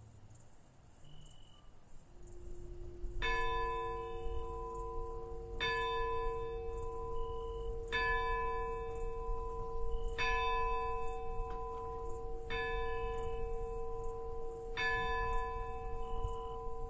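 A church bell struck six times in a slow, even toll, about every two seconds, each stroke ringing on into the next. Faint cricket chirps come through before the first stroke and between the later ones.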